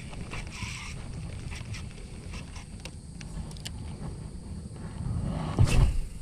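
Handling noise on a body-worn camera: a steady low rumble of cloth and wind against the microphone, with scattered light clicks from the rod and spinning reel being handled. About five and a half seconds in comes a louder rubbing rumble as the camera is jostled.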